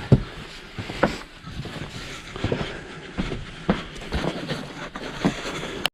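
Footsteps crunching and scuffing in snow, as irregular soft crunches and knocks over a steady hiss. The sound cuts off abruptly at the very end.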